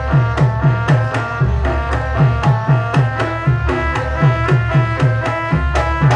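Javanese gamelan music accompanying the dance: hand drums struck in a fast, even beat of about three strokes a second, each low stroke dipping in pitch, over steady ringing tones from metal gongs and gong-chimes.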